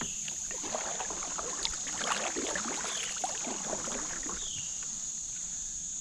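Kayak paddle strokes splashing and dripping in the river during the first four seconds or so, over a steady high-pitched drone of crickets.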